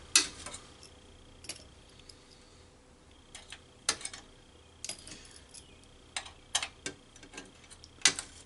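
Irregular sharp metal clicks and taps of a flathead screwdriver working at the X-clamp on an Xbox 360 motherboard.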